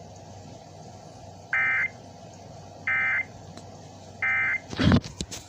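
Emergency Alert System end-of-message tones: three short bursts of SAME digital data squawk, about a second and a half apart, marking the end of the severe thunderstorm warning. A loud crackling thump follows near the end.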